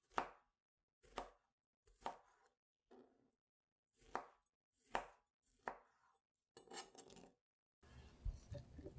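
A kitchen knife chops through a soft white strawberry onto a cutting mat in short, crisp cuts about a second apart, seven in all, then a quicker run of cuts. In the last second, diced fruit is stirred with a spoon in a glass bowl, giving a low rustling and knocking.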